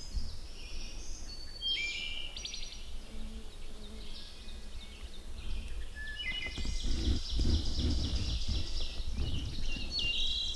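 Several small birds chirping and trilling in high, quick, repeated phrases throughout, over a low rumble that swells in the middle seconds.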